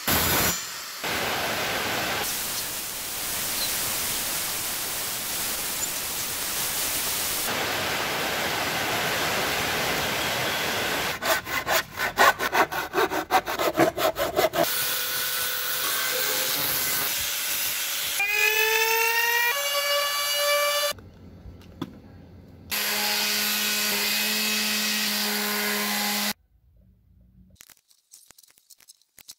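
Woodworking tool sounds in turn: a handheld electric circular saw running through wood, then quick even strokes of a fine-bladed hand saw cutting wood, about four a second. After that a motor whine rises in pitch, a steady motor hum follows, and near the end there are only faint light ticks.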